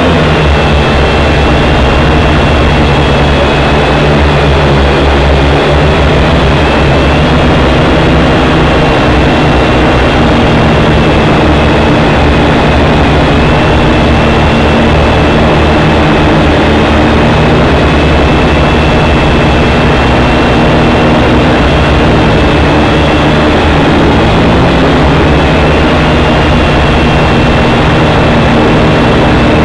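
WLtoys V959 quadcopter's four brushed motors and propellers, picked up by the craft's onboard camera microphone while in flight: a loud, steady buzzing with a high whine that wavers slightly in pitch as the throttle changes.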